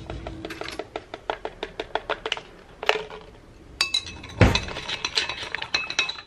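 A spoon clinking rapidly against the inside of a glass jar of water as a powder is stirred in, with quick light taps early on and brighter, ringing clinks in the second half. A heavier knock comes about four and a half seconds in.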